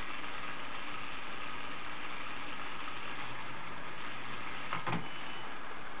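Small electric motors and plastic gears of a Lego Mindstorms robot whirring steadily as its gripper arm swings down onto the Rubik's Cube, with a single knock near the end.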